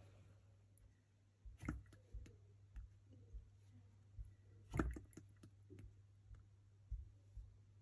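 Irregular light clicks and knocks of hands handling things on a workbench, the loudest about five seconds in, over a low steady hum.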